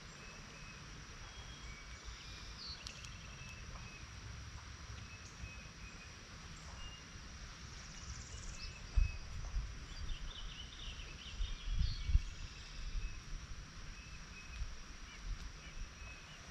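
Birds chirping and singing around an open garden, with short repeated calls throughout and a quick run of chirps about ten seconds in. Low rumbling bursts of wind on the microphone come and go, loudest between about nine and thirteen seconds in.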